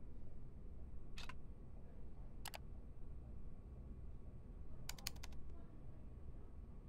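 A few faint laptop key clicks: one about a second in, two together a little later, and a quick run of four or five about five seconds in, over a low steady hum.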